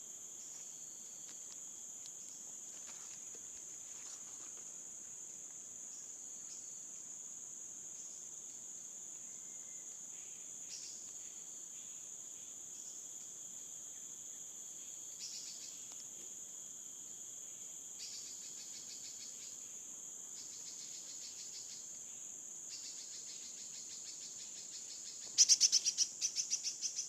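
Crickets chirring in a steady, high-pitched drone. Short, rapid trills break in now and then from halfway on, and a loud run of quick chirps comes near the end.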